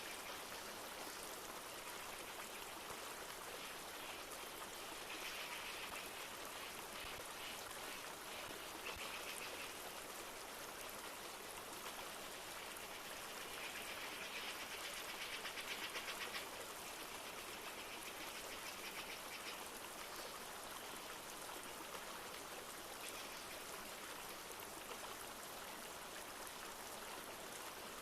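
A river flowing steadily, a constant rush of water, with light rain falling. Twice a rapid high trill rises above the water, the second one louder.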